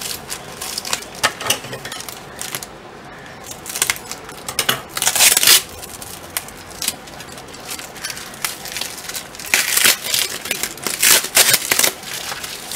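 White foam packing sheet and clear plastic being handled and pulled apart while unwrapping a speaker: irregular crinkling and rustling, loudest about five seconds in and again from about ten to twelve seconds.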